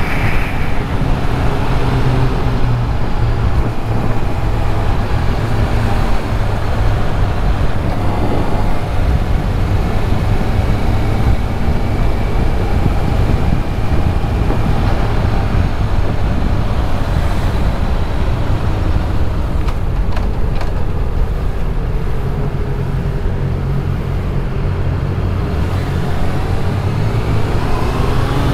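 Riding a motorcycle through city traffic: the bike's engine runs at a steady cruise under constant wind and road rumble, with the engines of surrounding cars and scooters mixed in.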